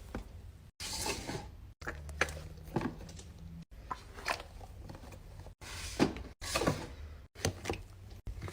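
Fidget toys being handled and clicked: an irregular series of short, sharp clicks and knocks, several close together at times.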